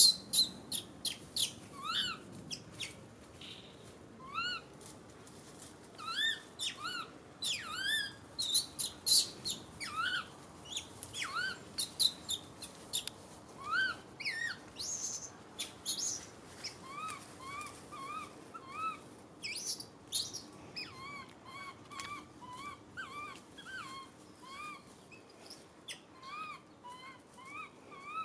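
Baby macaque giving many short, rising calls again and again, with a few harsher squeals near the start: an infant calling for its mother when she is out of sight.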